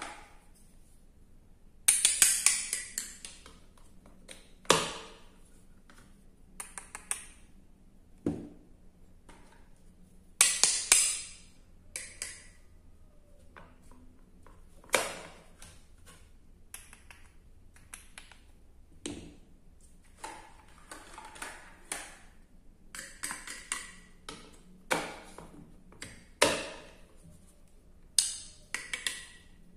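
A wooden toy knife tapping and clicking against a plastic cutting board as toy wooden vegetables are sliced and pulled apart into pieces: irregular sharp taps with several short rasping bursts, the longest about two seconds in and about ten seconds in.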